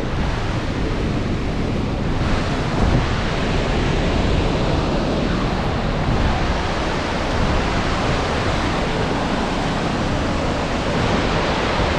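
Large waterfall's steady rushing noise, with wind buffeting the microphone as a low, uneven rumble.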